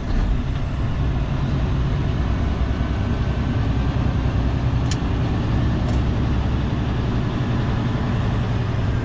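Semi-truck diesel engine running steadily while driving, a low even drone with road noise, heard from inside the cab.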